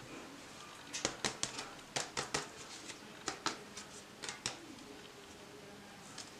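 A run of about fifteen light, sharp clicks and taps, irregularly spaced, over about three and a half seconds, then quiet handling, over a faint steady hum.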